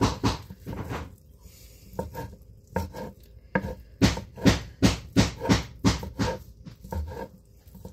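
Kitchen knife chopping cooked chicken on a wooden cutting board, each stroke a knock of the blade against the board. The chops are sparse at first, then come steadily at about two to three a second from about halfway.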